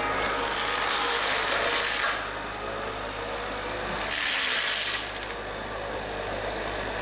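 Forestry mulcher head on a Bobcat mini excavator shredding brush and saplings, a steady grinding over the machine's running engine. The grinding surges louder twice: for the first two seconds and again about four seconds in.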